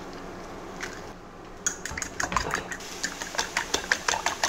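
Eggs being beaten by hand in a red enamel bowl: the utensil clicks against the bowl quickly and rhythmically, about five strokes a second, starting about a second and a half in.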